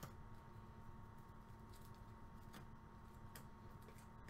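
Near silence: room tone with a steady low hum and a few faint, short clicks.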